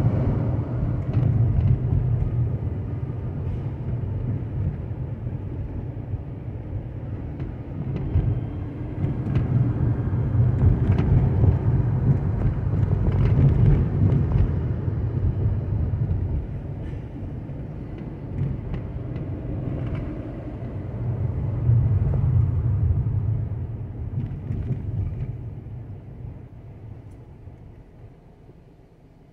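Low rumble of a car driving on city streets, the engine and tyres swelling and easing with speed, with a few faint knocks from the road surface. It fades away over the last few seconds as the car slows to a stop behind traffic.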